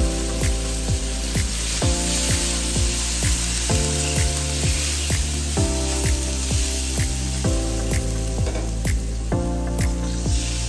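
Chicken and onions sizzling as they fry in oil in a wok, under background music with a steady beat of about two a second and chords that change every couple of seconds.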